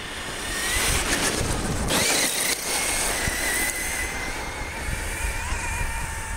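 Electric RC monster truck's brushless motor (Leopard 4082 2000kv on 6S) whining at full speed, tyres spraying gravel as it passes close by. The gravel spray is loudest from about one to two and a half seconds in, where the whine briefly climbs higher before settling back to a steady high whine.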